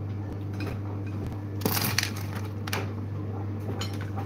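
A few short knocks and scrapes of a spatula and potatoes against a metal roasting pan, the loudest about two seconds in, over a steady low hum.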